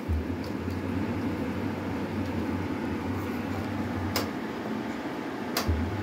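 Propane van furnace's blower fan running smoothly with a steady low hum. Two short clicks sound in the second half.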